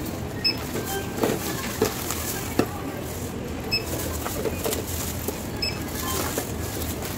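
Shop checkout: a barcode scanner beeps three times while plastic goods knock down onto the counter and a plastic carrier bag rustles.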